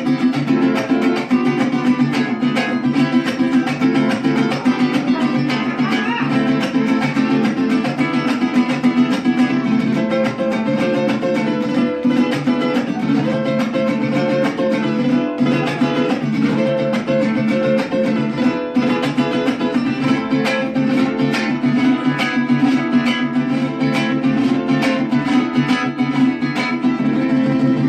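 Mariachi band playing an instrumental passage, strummed guitars to the fore; held melody notes join about ten seconds in.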